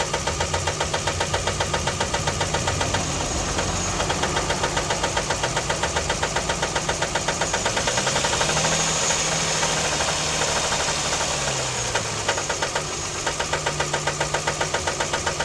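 Car engine idling with a rapid, regular knocking that the owner suspects is rod knock. About eight seconds in the engine is revved slightly and the knock becomes less distinct, then it drops back to idle and the knocking is plain again near the end.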